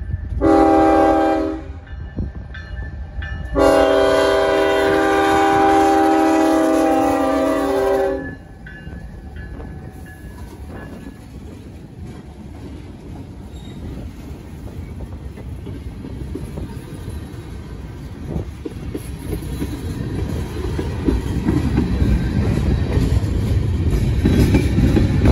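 CSX freight locomotive's air horn sounding a chord of several tones: one short blast, then a long blast of about four and a half seconds. Then the locomotives and freight cars roll past, the rumble of steel wheels on rail growing louder toward the end.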